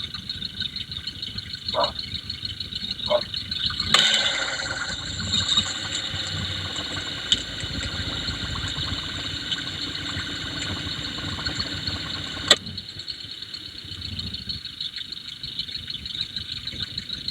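A running car engine heard through an electronic stethoscope probe: a fast, fine mechanical ticking of the kind fuel injectors make. About four seconds in, a scraping contact makes the sound fuller until a sharp click near the end, as the probe is shifted on the engine.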